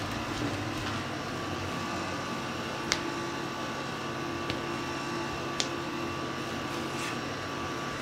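A steady mechanical hum made of several fixed tones, with four faint, sharp clicks spread through it.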